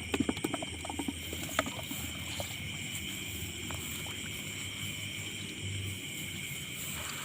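Steady night chorus of insects in a rice paddy, a continuous high-pitched trilling at several pitches, over a low steady hum. A few short sharp knocks come in the first second or two.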